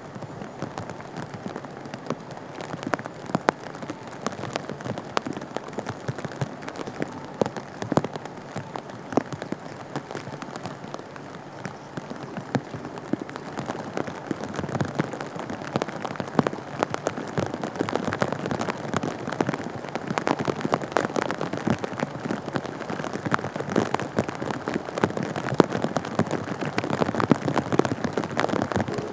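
Heavy rain falling and pattering on surfaces close by: a dense run of sharp drop ticks over a steady rushing hiss, louder in the second half.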